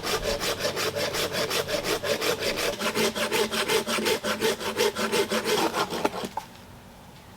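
Hand saw cutting through an oak branch in rapid, even strokes, about five a second, stopping about six seconds in.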